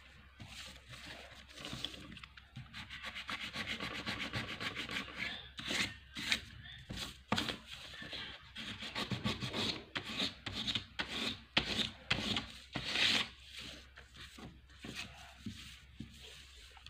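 Fingers rubbing pastel colour into paper to blend the bands, a run of irregular scratchy back-and-forth strokes that come faster and sharper in the middle.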